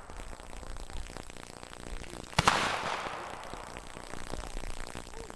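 A single black-powder muzzleloader shot about two and a half seconds in, a sharp crack followed by a long fading echo.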